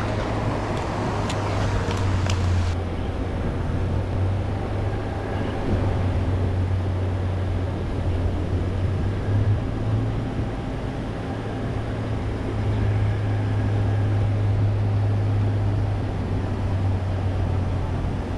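Pond aerators running: a steady low electric motor hum with a wash of splashing water. A few sharp clicks in the first three seconds.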